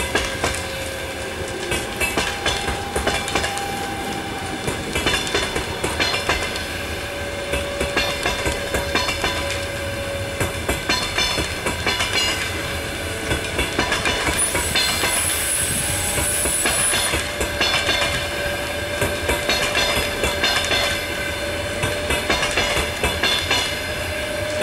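Passenger coaches of a departing train rolling past, their wheels clicking in repeated groups over the rail joints under a steady rumble. A high whine joins in for a couple of seconds around the middle.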